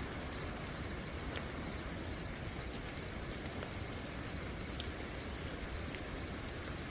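Steady night rain, with crickets singing in a continuous high trill over it and a few faint ticks scattered through.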